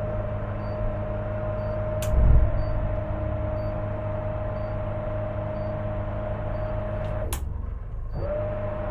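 Motor yacht's electric bow thruster whining steadily as it swings the bow round. It cuts off with a click about seven seconds in and starts again about a second later. Under it is the low hum of the yacht's engines, with a click and a low thump about two seconds in.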